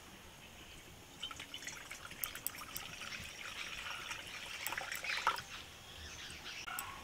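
Water pouring from a plastic jug into a steel kadai, a steady splashing trickle that swells and stops about five seconds in.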